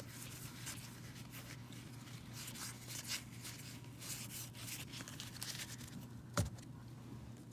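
Trading cards rustling and scraping against one another as a stack is thumbed through by hand, faint and continuous. A single thump about six and a half seconds in.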